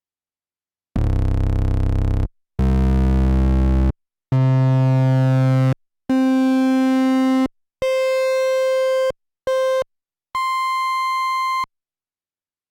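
Korg Monologue analog monophonic synthesizer sounding a string of seven separate held notes, each about a second long with short gaps, one much shorter. They start as a low, buzzy bass and climb in pitch while the tone thins out, ending on an almost pure high tone.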